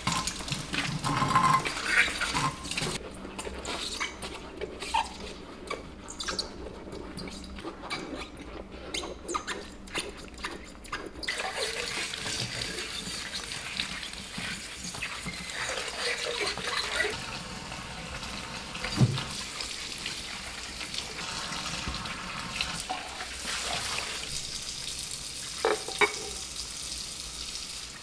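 Kitchen tap running into a stainless steel sink while glass jars and wooden lids are rinsed and handled. Many quick clinks and knocks in the first half, then a steadier stream of water with an occasional knock.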